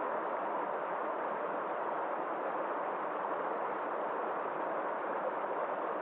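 A rocky mountain stream rushing and splashing over boulders in small cascades, a steady, even rush of water.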